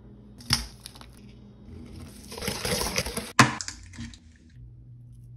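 Eggs cracked and broken open over a stainless steel mixing bowl, with one sharp crack about three and a half seconds in that is the loudest sound. Before it come a short tap and about a second of scratchy rustling, and a few small clicks follow.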